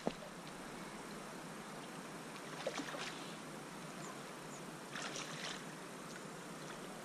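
Shallow creek water running with a steady hiss, a sharp click just after the start, and two short bursts of splashing about three and five seconds in.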